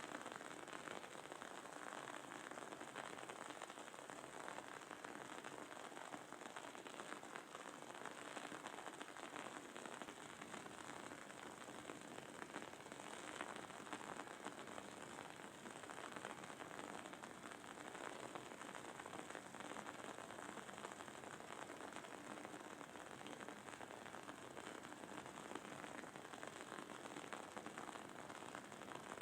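Wooden candle wick crackling and sizzling as it burns: a faint, dense, even patter of tiny crackles.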